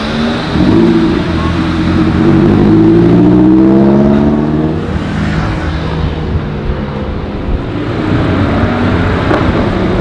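A car engine accelerating, its pitch climbing steadily for about four seconds. A rougher, noisier stretch follows, then another climb near the end.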